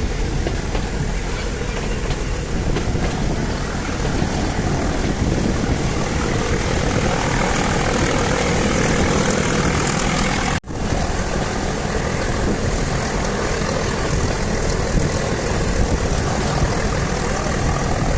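Steady running noise of the diesel-hauled Nilgiri Mountain Railway toy train, heard from aboard a moving carriage. The sound drops out for an instant about ten seconds in.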